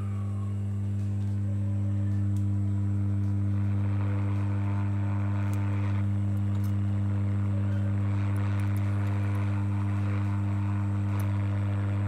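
Hot air rework gun blowing on a phone's display connector to melt its solder: a steady hiss of air over a strong steady hum, the airflow growing louder about two to four seconds in.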